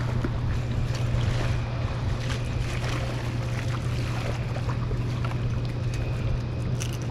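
Steady low hum of a fishing boat's motor running, with wind and water noise and scattered small ticks and splashes.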